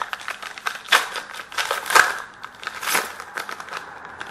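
Foil trading-card pack wrapper being crinkled and torn open by hand, with irregular crackling strokes that are loudest about one, two and three seconds in, then die away near the end.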